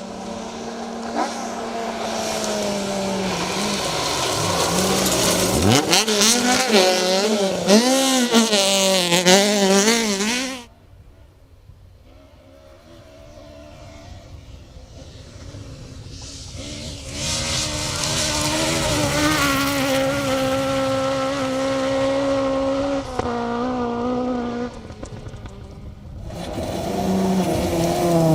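Rally cars at speed on a stage, engines revving hard with the pitch rising and falling through throttle and gear changes. The sound cuts off abruptly about ten seconds in. A quieter car then builds to a steady high engine note, and there is another abrupt change near the end to a car revving up and down.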